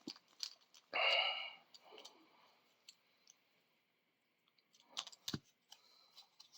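Scattered small clicks and taps of a resin 3D-printed spin stick and its parts (bead, bit, end cap) being handled, with a short breathy hiss about a second in and a few sharper clicks about five seconds in.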